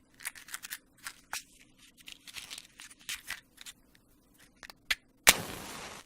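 An irregular run of short, crisp snipping sounds, then a few clicks and a sharp hit followed by a brief hiss.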